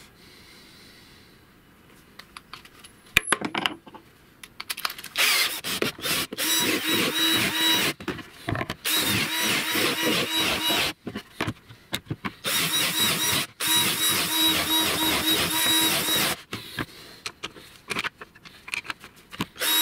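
Cordless drill with a countersink bit cutting into laminated plywood: a steady motor whine with rasping cutting noise, run in a string of short bursts with brief stops between holes. Before the drilling starts there is a quiet stretch with a single click.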